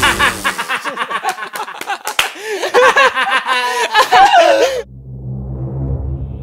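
Young men laughing loudly in quick, repeated bursts, with a sharp smack about two seconds in. The laughter breaks off suddenly near the five-second mark, leaving a low, steady, ominous drone.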